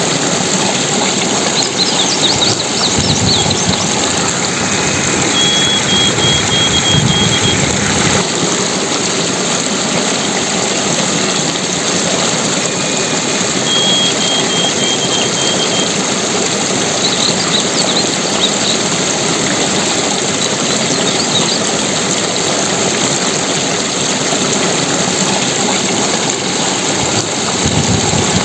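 Steady rushing water, loud and even. A few short high chirps and trills sound over it, near the start and again about halfway.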